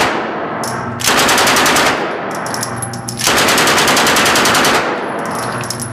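M16 rifle firing on full auto: a brief burst at the start, then a burst of about a second and a longer one of about a second and a half, at roughly ten shots a second.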